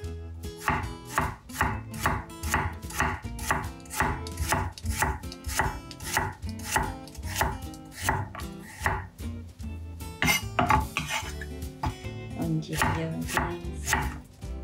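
Kitchen knife slicing carrot and then daikon radish into quarter-moon pieces on an end-grain wooden cutting board. The blade knocks steadily on the wood, about three strokes a second.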